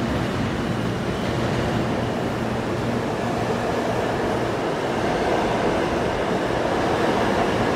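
New York City Subway R211 train pulling out of the station: a steady, even rumble of wheels on rail.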